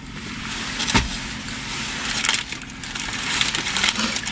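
Food wrappers rustling and crinkling while food is handled, with one sharp click about a second in, over a steady low hum inside a car cabin.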